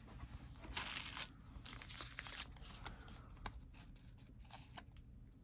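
Faint handling of paper and cardstock pieces from a journaling kit: a short rustle about a second in, then scattered small clicks and rustles.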